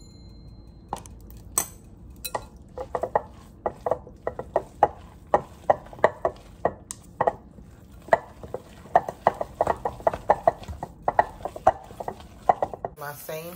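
Wooden spoon stirring a thick cheese filling in a glass mixing bowl, knocking against the glass in repeated sharp clacks, a few a second.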